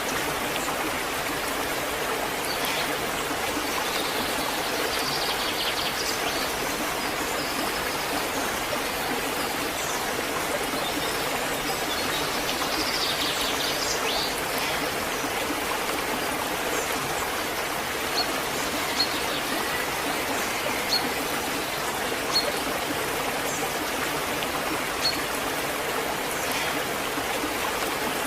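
Waterfall: steady rushing, splashing water, with a few short high-pitched ticks in the second half.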